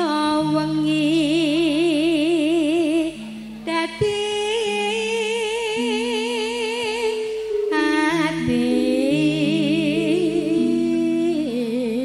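A woman's voice singing a slow Javanese campursari melody in long phrases with a wide, wavering vibrato, over steady held accompaniment notes. The singing breaks off briefly about three seconds in and again near eight seconds.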